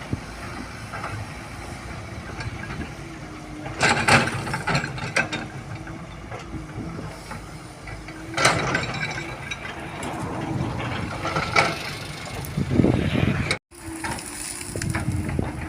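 Caterpillar 320 GC hydraulic excavator at work: its diesel engine runs steadily while loud clanking, scraping bursts come every few seconds, four times in all.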